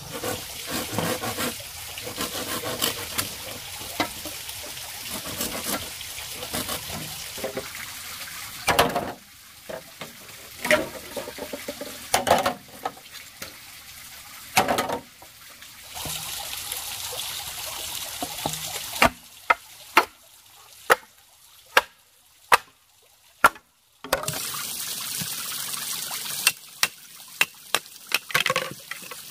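Bamboo poles being handled and struck with a knife, a run of sharp wooden knocks and clatters over a steady hiss. About two-thirds of the way through, the hiss drops away and about six single hard chops ring out, roughly a second apart.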